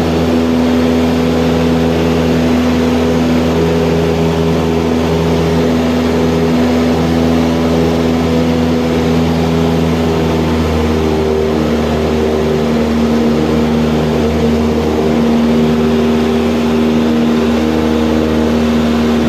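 Cessna 172M Skyhawk II's four-cylinder Lycoming piston engine and propeller running steadily at high power during the takeoff climb, a constant drone with no change in pitch.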